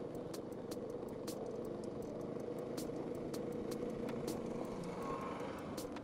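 TVS Apache RTR 200's single-cylinder engine running steadily at low speed, about 30 km/h, on a rough gravel road. Frequent irregular sharp ticks and rattles run over the hum as the bike crosses the loose stony surface.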